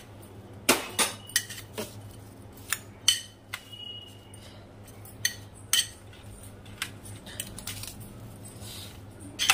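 Metal spoon clinking against a glass bowl while tossing chopped apple, beetroot and carrot, in irregular clinks and scrapes. One clink near the middle rings on briefly.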